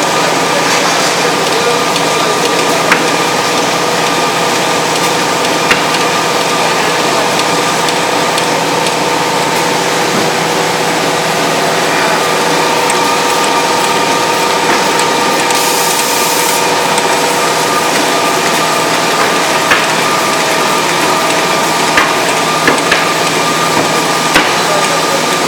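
Carton folder-gluer machine running steadily, a loud continuous machine noise from its belts and rollers feeding carton blanks through, with occasional sharp clicks and a brief hiss about sixteen seconds in.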